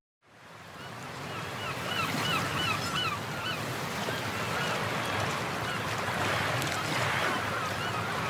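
Rushing white water of a fast rocky river, a steady hiss that fades in just after the start. About a second and a half in, a quick run of high chirps repeats for around two seconds over the water.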